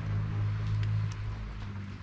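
Light drizzle pattering steadily, with a few faint drips, over a steady low hum that is loudest in the first second.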